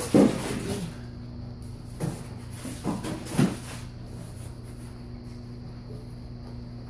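Cardboard box flaps and packing material rustling and scraping as the packing is handled inside the box. There is a loud burst at the start, then a few shorter scrapes between about two and three and a half seconds in.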